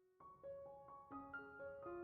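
Background piano music: soft notes entering one after another after a short pause near the start.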